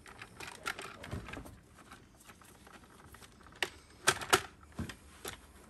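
Hard plastic clicks and knocks from handling and fitting a Dyson DC25 cleaner head onto the vacuum's yoke. A few sharp clicks come about four seconds in.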